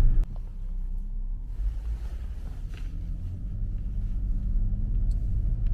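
Low, steady rumble of a 2009 BMW 5 Series moving off on a test drive, heard from inside the cabin.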